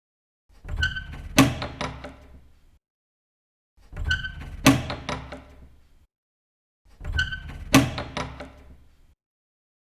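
Door opening, heard three times: each time a few rattling clicks of the handle and latch lead up to one sharp, loud latch click, then smaller clicks and a dull rumble fade out over about two seconds. Dead silence lies between the repeats.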